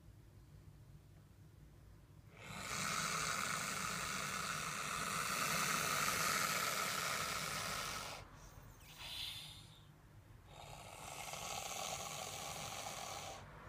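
Boa constrictor hissing: one long hiss of about six seconds, a short puff, then a second hiss of about three seconds.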